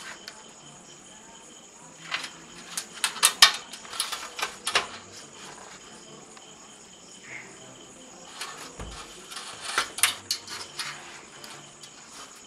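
Metal test-probe tips and a resistor leg tapping and scraping on the contacts of a TV backlight LED strip and its metal backplate, as each LED is tested in turn with a resistor-fed DC supply. The sharp little clicks come in two clusters, about two to five seconds in and again around nine to eleven seconds, over a faint steady high tone.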